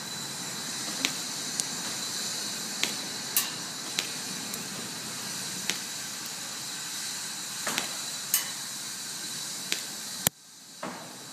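Airsoft shooting: about ten sharp snaps at irregular intervals, roughly a second apart, from the WE Glock 17 gas blowback pistol being fired or its BBs striking the target. A steady high hiss runs underneath, and the loudest snap comes near the end.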